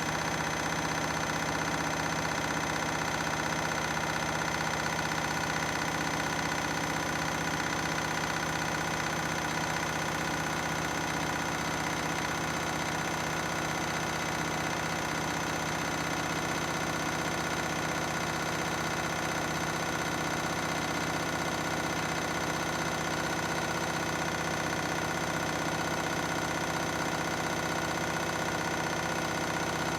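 Washing machine on a 1600 rpm spin cycle, the drum spinning at a steady speed with a steady motor whine and hum.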